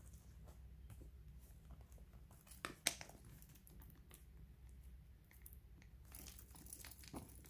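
Quiet handling of a quilted leather Chanel flap bag: two sharp clicks a little under three seconds in as the flap is closed, and a faint rustle of tissue paper toward the end.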